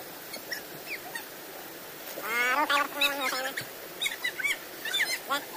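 Children's voices over the steady rush of a rocky stream: one long, nasal yell about two seconds in, then a few short high squeals.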